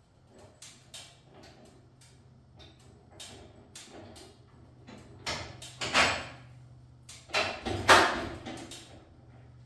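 Scattered metal clicks, clinks and scrapes as a long 5/8-inch bolt is worked through the chassis horseshoe and the engine's motor plate, with two louder scraping knocks in the second half.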